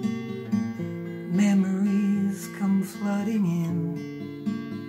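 Acoustic guitar strummed and picked in a steady pattern, with a short sung phrase coming in over it in the middle.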